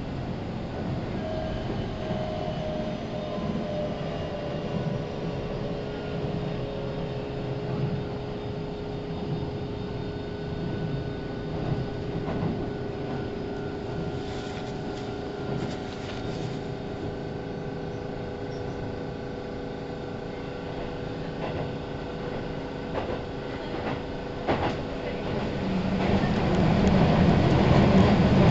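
A Keihan 3000 series electric train heard from inside a carriage while running: a steady rumble of wheels on rail with a drone of motor tones, and one tone that falls slightly over the first few seconds. Occasional clicks come from the rails, and the sound grows louder near the end.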